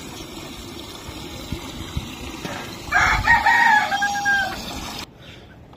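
A rooster crows once, a long call starting about three seconds in, over water running from a tap into a steel bowl; the running water cuts off suddenly near the end.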